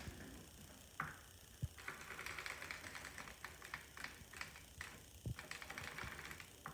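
Hand-cranked circular sock machine being turned, its needles clicking through the cam in fast runs of clicks, in two stretches with a few louder knocks between them.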